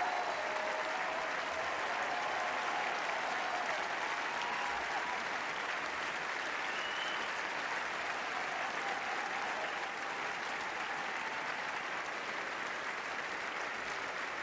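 Large concert-hall audience applauding steadily, a dense even clapping, with a few faint shouts near the start.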